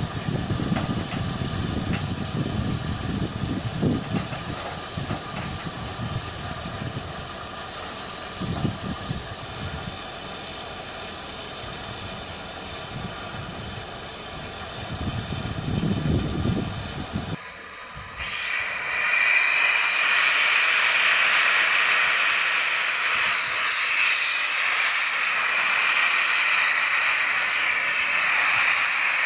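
Steam locomotive 35018 British India Line, a Bulleid Merchant Navy class Pacific, blowing steam from its open cylinder drain cocks: a loud, steady hiss that begins abruptly more than halfway through. Before it, a low uneven rumble with a fainter hiss.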